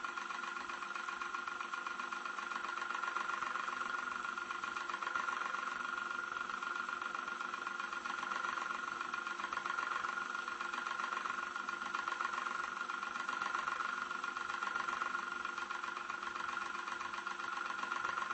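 Old electric fan running steadily, heard from medium distance: an even mechanical whir with a rapid flutter and no change in speed.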